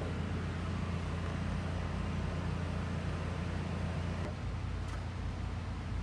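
A steady, low engine or motor rumble that eases slightly about four seconds in, with a short click just before the five-second mark.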